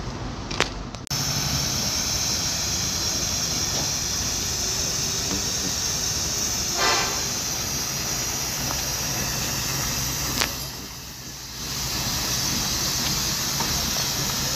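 Bedford six-wheeler truck's engine idling steadily, with a short pitched sound about seven seconds in.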